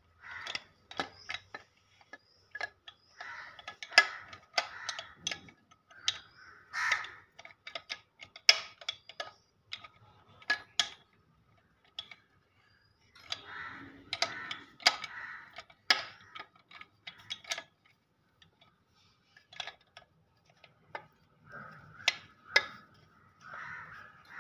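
Irregular metal clicks and knocks, with a few short pauses, as the crankshaft is worked into the three connecting rods inside the crankcase of an AR RK-15-20H high-pressure pump.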